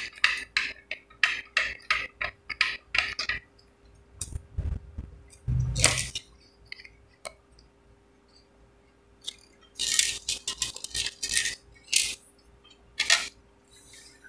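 Plastic phone-holder mount of a ring light being turned and screwed tight by hand: runs of quick clicks, about three a second, with a dull handling bump about five seconds in and a second run of clicks near the end.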